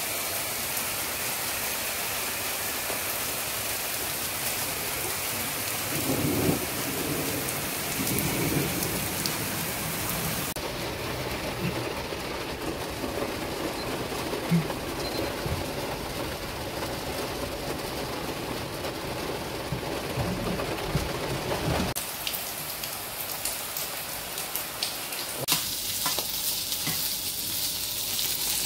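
Heavy rain pouring down steadily, with a low rumble of thunder about six seconds in. After about ten seconds it gives way to a steady road rush inside a moving car, and near the end to food frying in a pan with a spatula scraping.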